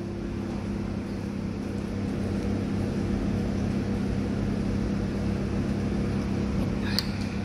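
Steady low mechanical hum over even background noise, getting slightly louder about two seconds in, with one short click near the end.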